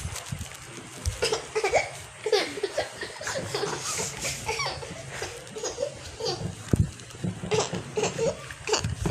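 Laughter mixed with indistinct voices, in short irregular peals.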